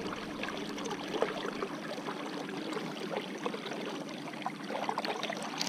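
Steady rush of river current around the wading angler, with a few faint crackles.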